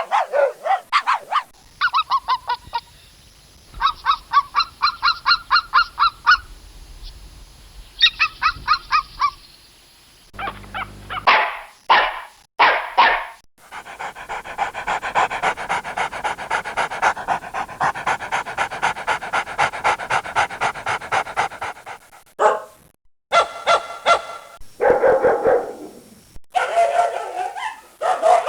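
A string of separate dog recordings. It opens with runs of rapid, high-pitched yapping, then moves to a few single barks. Next comes a long stretch of dense, overlapping barking lasting about eight seconds, and it ends with scattered single barks.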